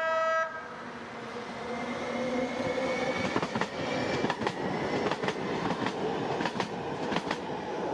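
San Diego Trolley light rail train passing close by: its horn ends about half a second in, then the rising hum of the motors and the rush of the train build, with a run of sharp wheel clicks about three a second through the second half.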